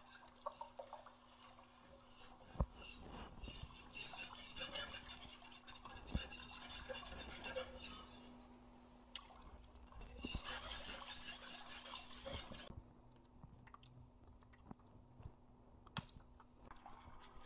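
Faint swishing and scraping of a wire whisk stirring milk into a flour-and-butter roux in a nonstick pan, in two spells of quick rhythmic strokes, with a few sharp taps.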